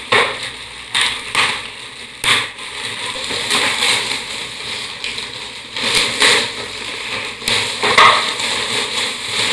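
Gift wrapping being torn and crumpled by hand as a present is unwrapped, a run of crackling rustles and sharp tears.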